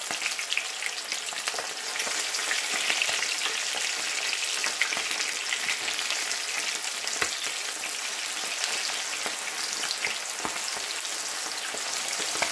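Flour-dusted chicken wings frying in hot oil in a cast iron skillet: a steady crackling sizzle with many scattered sharper pops.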